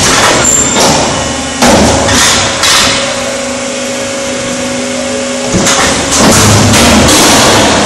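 VPS 2000 concrete block making machine running through its cycle: loud mechanical noise with sharp metallic knocks about one and a half and two and a half seconds in, a quieter middle stretch of steady hum, then loud running again about six seconds in.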